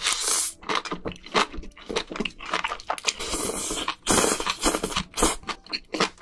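Close-miked eating of spicy sauced scallops and noodles: wet slurps from the shell and chewing with quick mouth clicks and smacks, with several longer slurps about three and four seconds in.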